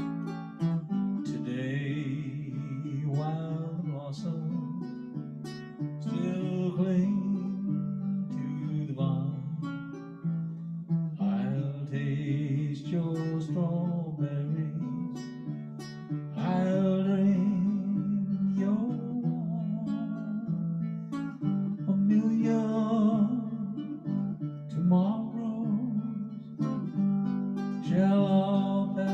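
A man sings a slow crooner-style song in phrases while accompanying himself on a ukulele.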